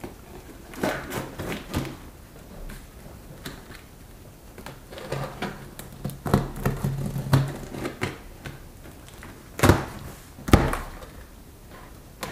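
Utility knife cutting packing tape and plastic straps on a large cardboard box: scraping, slicing and rustling against the cardboard, with two loud sharp knocks about ten seconds in.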